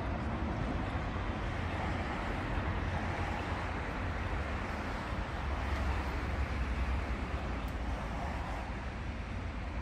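Historic 1913 MAN tramcar rolling slowly over new track: a steady low rumble of wheels and running gear that grows a little louder about halfway through as it comes closer.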